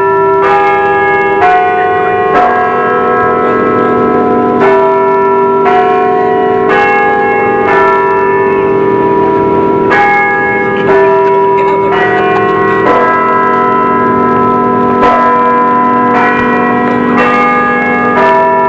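Old church bell ringing, struck about once a second, with each stroke ringing on into the next.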